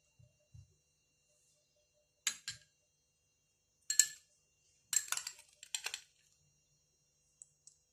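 Metal spoon clinking against glass bowls: two quick clinks, a louder single clink about four seconds in, then a rapid run of clinks a second later.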